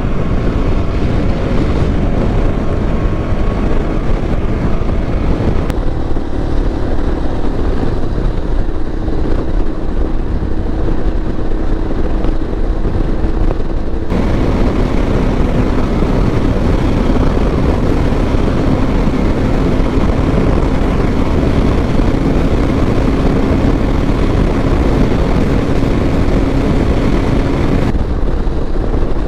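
Single-cylinder motorcycle engine running under way, with steady wind and road noise; the sound changes abruptly a few times, as from one riding shot to the next.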